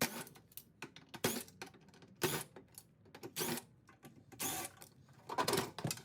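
A small power driver backs screws out of a microwave's sheet-metal casing in short, irregular spurts, with clicks and metal clinks in between.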